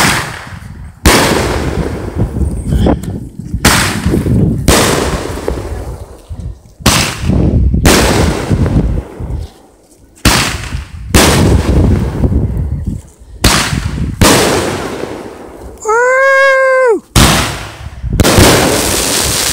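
Multi-shot consumer fireworks cake firing aerial shots, about a dozen loud bangs roughly one every second, each trailing off in a short rumble.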